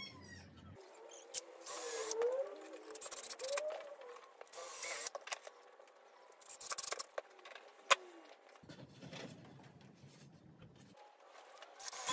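Handling noise on a workbench: tools and wood being moved, with scrapes, rubs, a few short squeaks and a sharp click about eight seconds in.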